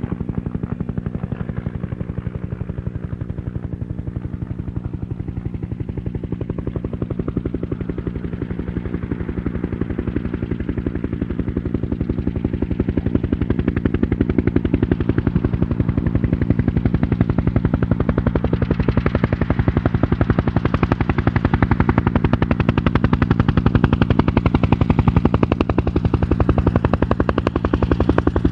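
Large Mil transport helicopter running with rotors turning: a fast, even rotor chop over a steady low turbine and gearbox hum. It gets louder about halfway through.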